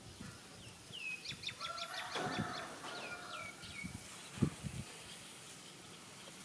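A bird calling: a quick run of short, high chirps that each drop in pitch, then a few slower ones, with a couple of low thuds.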